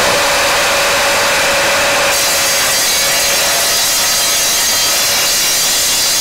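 Evolution R255SMS 10-inch miter saw running at speed with its TCT multi-material blade. About two seconds in, the blade bites into a stainless steel pipe and a shrill, high cutting sound joins the motor, going on steadily.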